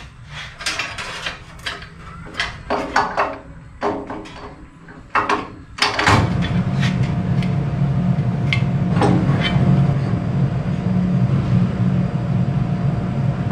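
Metal parts of a Delta 14-inch band saw clanking and clicking as they are handled and fitted back together, in quick separate knocks. About six seconds in a steady low hum starts abruptly and carries on, with a few more clicks over it.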